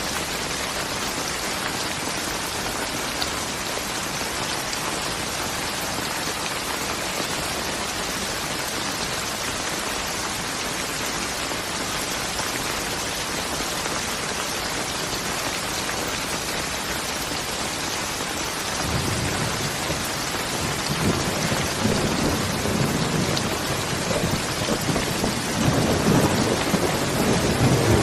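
Steady rain falling, an even hiss throughout. About two-thirds of the way through, a low rolling rumble of thunder builds and is loudest near the end.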